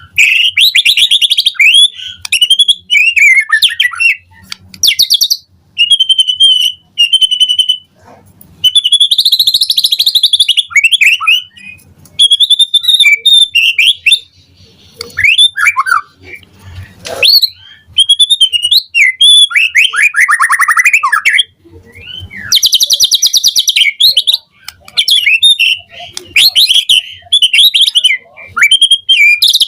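White-rumped shama (murai batu) singing a loud, varied song: rapid trills, clear whistled notes and falling glides, in phrases of one to three seconds with short pauses between them.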